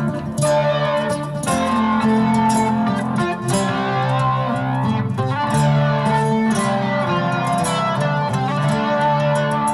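Nylon-string acoustic guitar played solo, plucked notes ringing into each other in a slow ambient instrumental passage.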